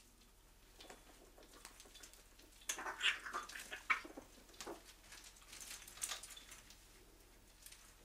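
African grey parrot clambering about a play gym of rope perches and hanging toys: faint, scattered taps, clicks and rustles, busiest about three to four seconds in and again around six seconds.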